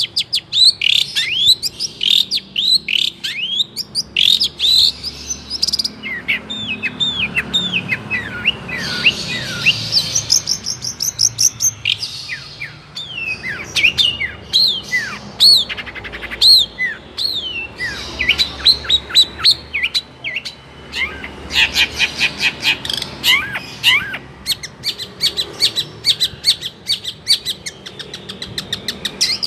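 Long-tailed shrike (cendet) singing a continuous, rapid and varied song. It is made of sharp chirps, quick downward-slurred whistles and fast rattling trills, with hardly a pause.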